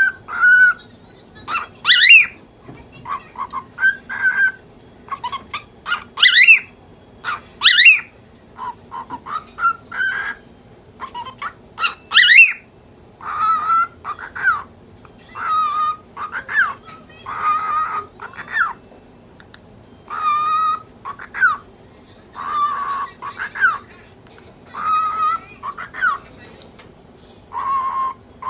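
Lutino cockatiel chattering in short bursts of mimicked talk and calls, about one a second. In the first half several loud upward-sweeping whistled chirps stand out; later the calls are lower and steadier.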